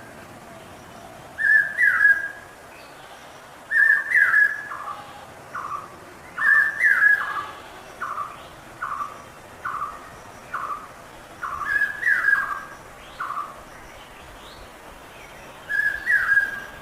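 Common hawk-cuckoo (brainfever bird) calling: shrill whistled phrases of short, sharply falling notes, repeated every couple of seconds. Through the middle there is a quicker run of slightly lower single notes, under a second apart.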